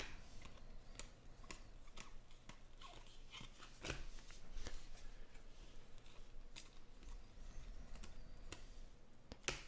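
Trading cards flipped through by hand, a series of soft, irregular clicks and swishes as glossy card stock slides off the stack.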